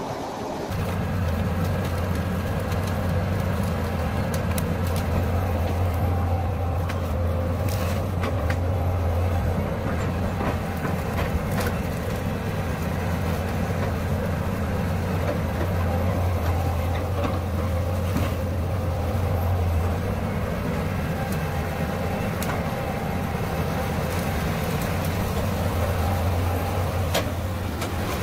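Tracked excavator's diesel engine running with a steady low hum, with scattered sharp clicks and knocks.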